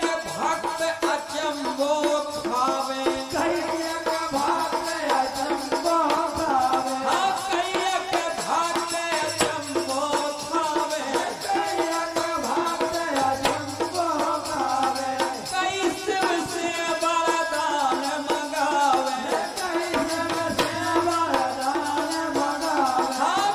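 Bundeli folk bhajan music: a wavering melody over fast shaken, rattling percussion.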